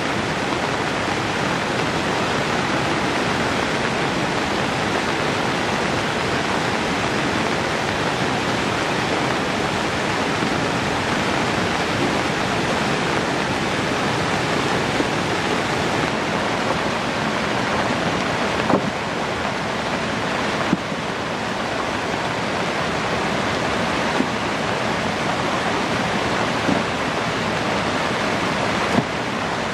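Fast-flowing floodwater rushing in a steady, loud roar, with a few brief clicks.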